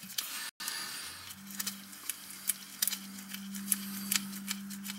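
Light irregular metallic clicks and scrapes as a nut and washer are turned by hand on a long toilet closet bolt. A steady low hum comes in about a second and a half in.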